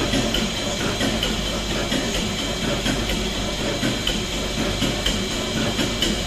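Vintage stationary diesel engine running steadily, a busy mechanical clatter with a regular light ticking a little over twice a second.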